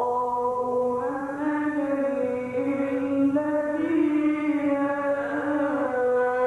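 A man's voice chanting Quran recitation in tajweed style, drawing out long held notes that step and slide from one pitch to another.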